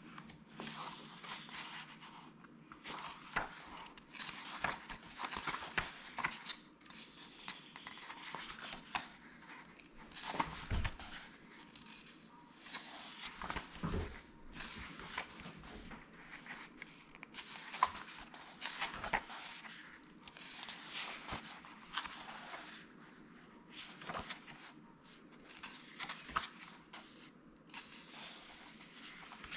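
Paperback book pages being turned by hand, one papery swish and rustle every second or two, with a few soft thumps as the book is handled and pages are pressed flat.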